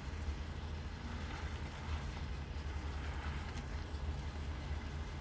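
Pan of cherry tomatoes in bouillon water simmering on the stove: a steady low rumble with a faint hiss, and a couple of faint light taps.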